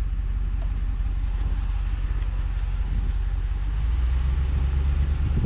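A pickup truck's engine and road noise heard from inside the cab: a steady low rumble that grows a little louder about four seconds in.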